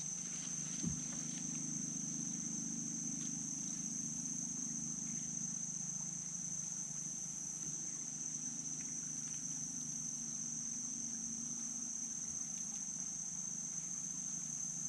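Steady high-pitched insect drone, one unbroken pitch, with a low steady hum beneath it and a single small click about a second in.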